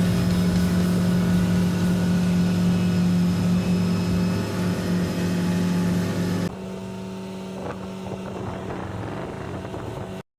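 Motorboat engine running steadily with a constant hum. It drops suddenly to a quieter level about six and a half seconds in and cuts off just before the end.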